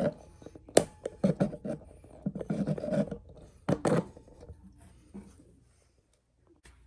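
Irregular rubbing and scraping handling noises with a few sharp clicks, fading after about four seconds to near silence.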